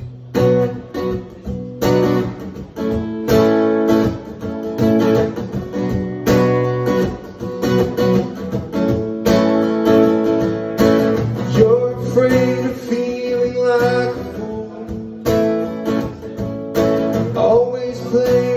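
Acoustic guitar strummed in a steady rhythm, playing a song's intro.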